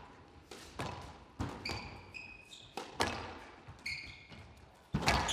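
Squash rally: the ball is struck by rackets and hits the court walls with sharp knocks, roughly one every half second to second, the loudest near the end. Players' shoes squeak briefly on the court floor twice.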